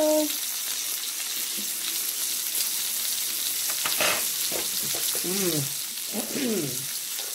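Shrimp, scallops and sliced sausage sizzling steadily on a hot grill plate.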